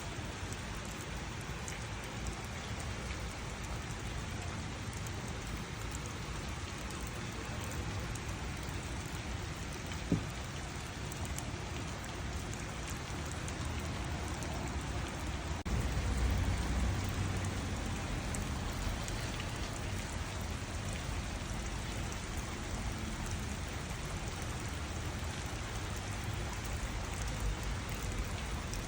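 Gentle rain falling steadily in a garden, an even patter of raindrops. A single sharp tick about a third of the way in, and a low rumble that comes in suddenly about halfway and slowly fades.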